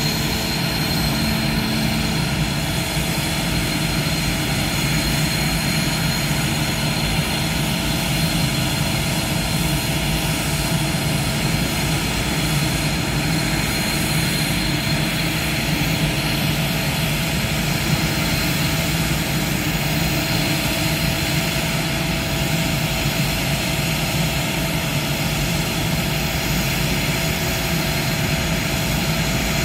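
Northrop F-5 fighter jets' twin General Electric J85 turbojets idling on the ramp: a steady jet rush with a constant high whine running through it.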